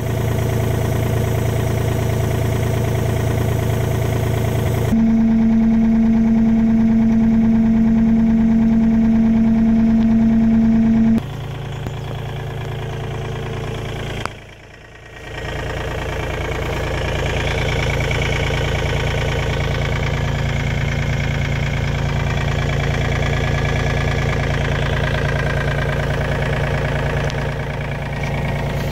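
Komatsu PC35MR-2 mini excavator's three-cylinder diesel engine idling steadily. The sound shifts abruptly in loudness and tone about 5, 11 and 15 seconds in, with a strong steady hum between about 5 and 11 seconds.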